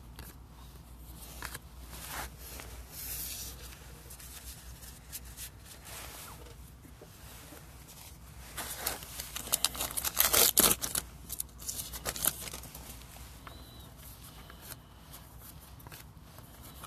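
Trading card packs being opened and the cards handled: wrappers crinkling and tearing, cards sliding and flicking. The rustling is loudest for a few seconds from about nine seconds in.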